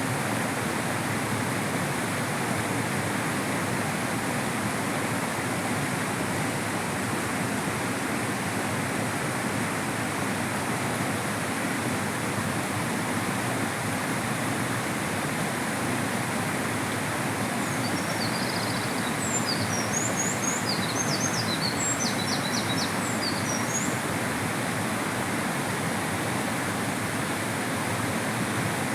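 A mountain river rushing steadily. About two-thirds of the way through, a small bird sings a few seconds of quick, high chirps over it.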